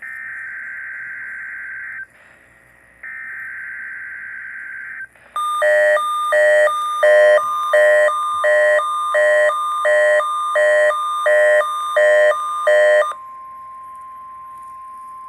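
EAS weekly test over NOAA Weather Radio. It opens with two bursts of warbling SAME digital header tones separated by a short gap. Then comes a steady single-pitch warning tone with a weather-alert receiver's repeating electronic chime of about eleven beeps on top, and the tone carries on alone for the last couple of seconds.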